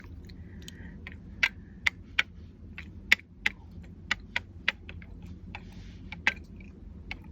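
Irregular light plastic clicks and taps, about a dozen of them, as the tip of an alcohol ink bottle is touched down again and again onto a plastic switch plate cover.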